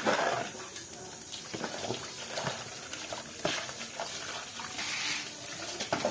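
A hand rummaging through a metal basin full of wet fish and shrimp: irregular wet slaps and rustles with scattered clicks as the catch is shifted about.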